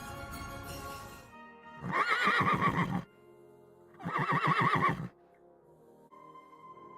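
Two horse whinnies, each about a second long with a quavering, wavering pitch, one after the other. Music plays before them and stops about a second in; soft held tones begin near the end.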